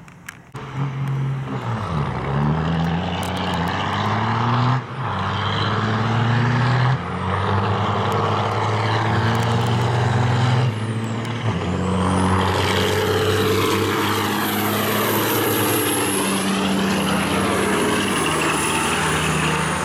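Big-rig diesel semi-truck engines at full throttle in a drag-race launch, pulling up through the gears with a short drop in sound at each shift, about 5, 7 and 11 seconds in. From about 12 seconds a high whistle rises over the engine noise as the trucks pass.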